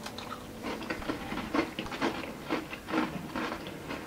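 Two people biting and chewing crunchy Fox's triple chocolate cookies: irregular crisp crunches.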